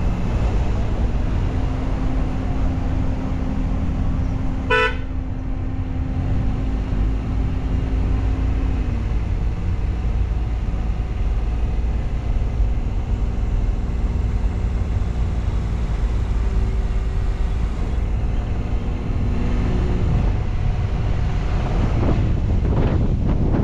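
Motorcycle running along the road with a steady engine drone and dense wind and road rumble, the engine note dropping slightly about nine seconds in. A single short horn toot sounds about five seconds in.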